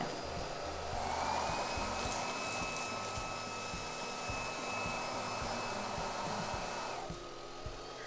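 Xiaomi Roidmi F8 cordless stick vacuum running on its second power setting (130 W), a steady motor hum with a thin whine. The whine steps up a little about a second in and drops away about a second before the end.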